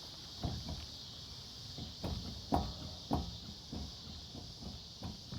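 Irregular dull clunks, roughly two a second, from the worn front wheel hub bearing of a 2012 Chevrolet Silverado 4x4: the knocking of play in a failed hub bearing.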